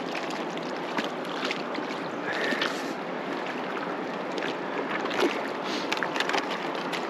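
Steady rush of flowing river water, with a few short clicks in the second half.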